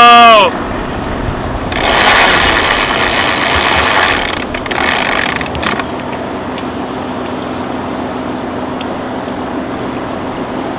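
Steady engine hum, with a loud rushing noise for about three seconds starting about two seconds in and a weaker one just after.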